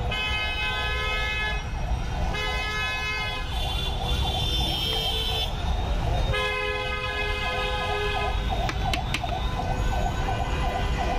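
Street traffic with vehicle horns sounding in long held blasts, one after another, the last held for about five seconds, over a steady low traffic rumble.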